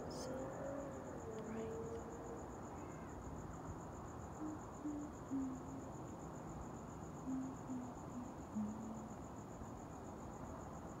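Night insects calling in one steady, continuous high trill. A few short, low pitched notes break in now and then over a soft background hiss.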